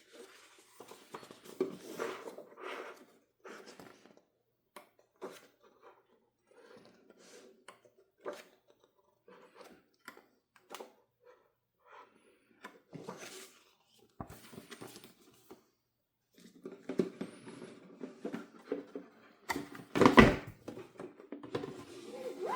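Board game components and packaging being handled on a table: scattered light taps, clicks and rustles, busier near the end, with a louder rustle and a thump about twenty seconds in.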